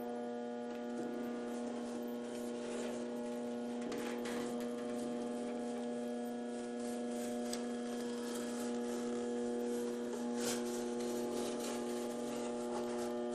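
Electric motor of a powered bead roller humming steadily as a sheet of metal is fed through the skateboard-wheel roller, with a few faint clicks from the sheet and tooling.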